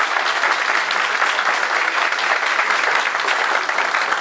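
Audience applauding: dense, steady clapping from a large seated crowd.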